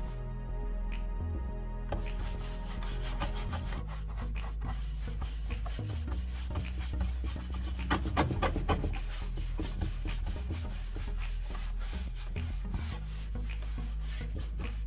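Round bristle brush scrubbing rapidly back and forth over a painted board, working on a liquid sealer, with background music underneath.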